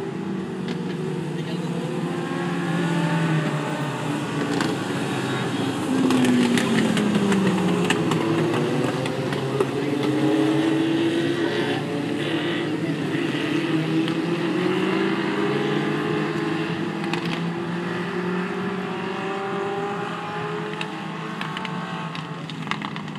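A pack of Legends race cars running on the track, their Yamaha motorcycle engines revving up and down as they race past. They are loudest about six seconds in, where one engine note falls away.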